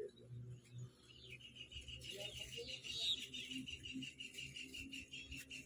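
Faint birdsong: a fast, even trill of repeated high notes starts about a second in and keeps going, with a few higher chirps over it.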